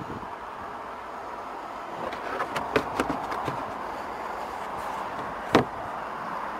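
Handling noise of a car's boot floor cover being lowered over the spare wheel: a run of light clicks and knocks, then one sharp knock about five and a half seconds in as the panel comes down.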